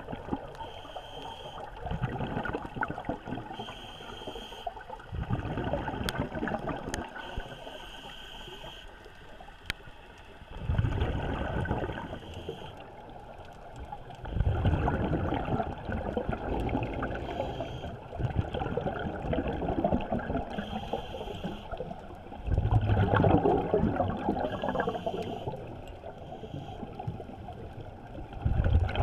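A scuba diver breathing through a regulator, heard underwater through the camera housing. Short hissing inhales alternate with louder rumbling bursts of exhaled bubbles every few seconds.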